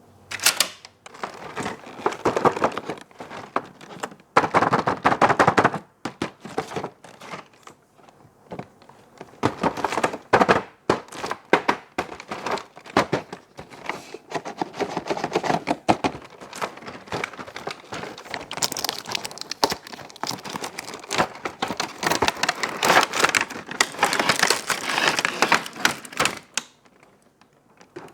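Toy packaging being handled and opened by hand: crinkling plastic and cardboard with rapid clicks and taps, coming in bursts with short pauses between them.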